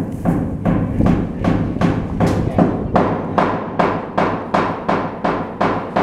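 Hammer blows on steel at an even pace of about three a second, each ringing briefly, over a steady low hum.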